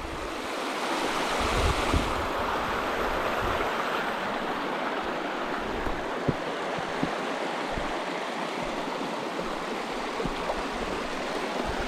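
Rushing water of a waterfall, a steady even hiss, with a few soft knocks about halfway through.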